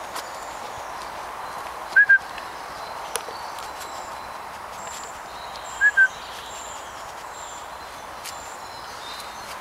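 Faint birdsong of small songbirds over a steady background hiss, broken twice by a loud, short double squeak about four seconds apart.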